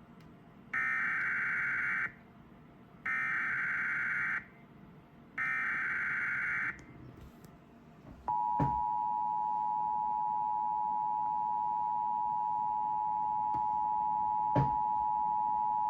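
Emergency Alert System SAME header: three buzzy bursts of digital data tones, each about a second and a half long with short gaps between, then the EAS two-tone attention signal starting about eight seconds in and holding steady, with two brief clicks over it. It opens a Required Monthly Test of the emergency alert system.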